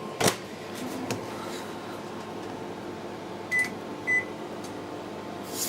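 LG IntelliWave 1600 W microwave oven being set going: a click about a quarter second in, two short keypad beeps a little over half a second apart, then a rush of noise as the oven starts up near the end.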